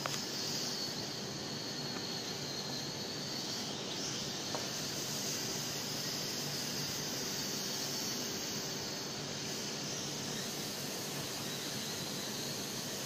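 Small toy quadcopter in flight, its motors and propellers making a steady high whine that wavers slightly in pitch.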